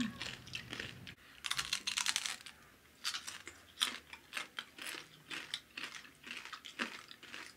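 Close-miked eating sounds: chewing and crunching of crispy roast pig (lechon) skin, heard as an irregular run of sharp crackly crunches.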